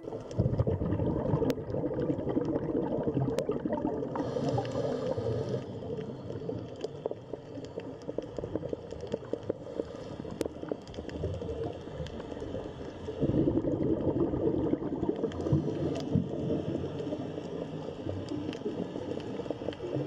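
Underwater bubbling and gurgling, a dense crackle that grows louder a little past the middle, with a few sharp ticks.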